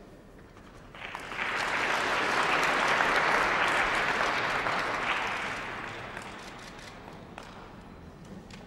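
Audience applauding, starting about a second in, swelling, then fading away over the last few seconds.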